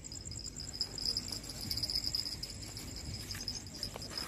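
Crickets chirping in a steady, rapid, high-pitched trill, with a faint click about four seconds in.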